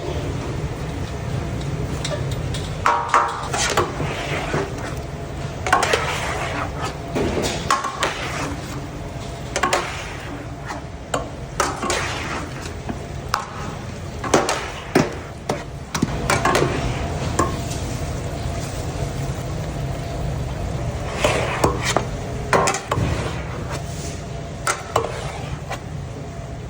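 Metal utensils clinking and scraping against a pan of fried rice, in short irregular strokes over a steady low hum.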